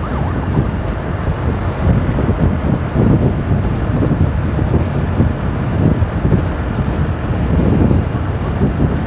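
Wind buffeting the microphone of a 150 cc motorcycle riding at road speed, a loud, irregular low rumble with the bike's engine and tyre noise underneath.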